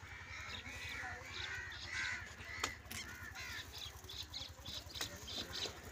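Crows cawing repeatedly, with a sharp click about two and a half seconds in and a faint low rhythmic rumble underneath.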